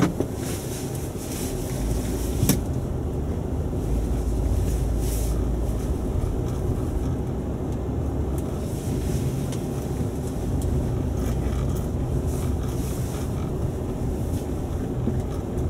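Low, steady rumble of a 2000 Toyota Avalon driving slowly around a lot, heard from inside the cabin, with a single sharp click about two and a half seconds in.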